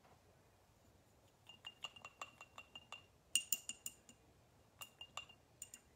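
A paintbrush clinking against a glass jar, as when swished and tapped in a water jar to rinse it. Quick ringing clinks come in several runs, loudest about three and a half seconds in.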